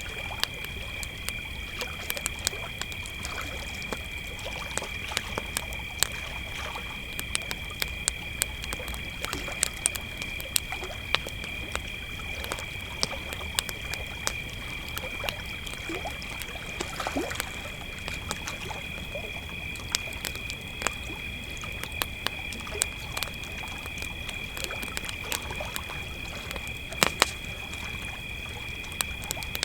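A steady chorus of crickets chirring at two high pitches, with a wood campfire crackling and popping irregularly. A few loud pops come near the end.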